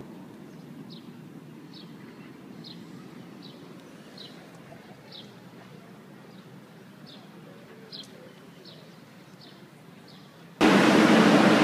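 Quiet outdoor ambience with a faint low hum and a bird giving a short, high chirp about once every 0.8 seconds. About a second before the end, it cuts sharply to a loud, steady rushing noise.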